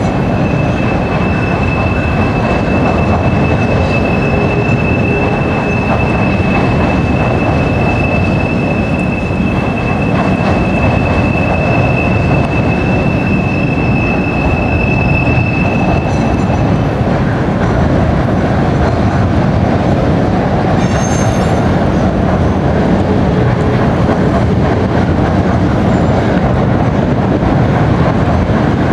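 BNSF intermodal freight train rolling across a steel truss bridge: a loud, steady rumble of wheels on rail, with a long, even high-pitched wheel squeal that stops a little past halfway. A brief, higher squeal comes a few seconds after that.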